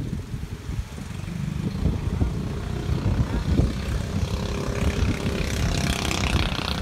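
Small motor engine of a racing outrigger boat running steadily, growing louder and brighter near the end, with wind buffeting the microphone.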